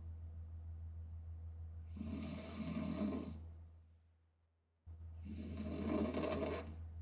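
A woman snoring open-mouthed, with two snores about three seconds apart, each lasting about a second and a half. Under them runs a low steady hum that fades out for about a second and cuts back in suddenly just before the second snore.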